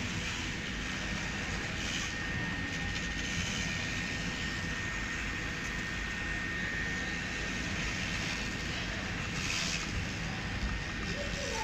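Steady factory machinery noise, with a faint high whine held for a few seconds in the middle.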